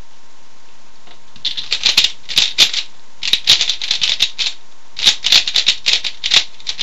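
3x3 Rubik's cube being turned fast with only R and U face moves: rapid plastic clacking in quick bursts, starting about a second and a half in.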